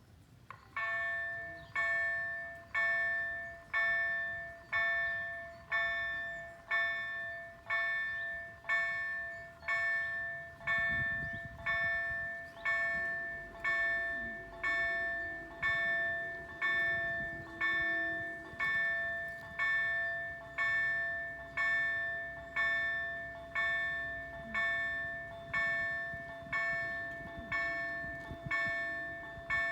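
EDG-2005 level crossing warning bell ringing, striking about once a second with each stroke dying away, as the crossing's warning sequence starts. A low rumble joins about a third of the way in.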